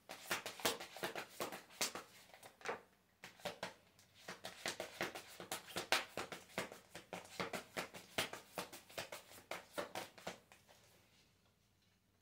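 Tarot deck being shuffled by hand: a rapid run of light card flicks and slaps that stops about ten and a half seconds in.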